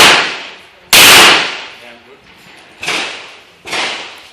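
.357 Magnum revolver firing: two loud shots about a second apart, each with a ringing tail, then two fainter shots close together near the end.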